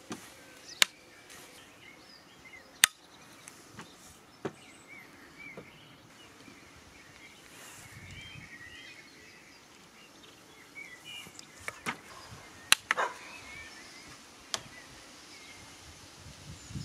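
Sharp metallic clicks, several of them at irregular intervals, as a steel welding magnet is snapped onto and pulled off the head of a steel sledgehammer and the hammer is handled by it.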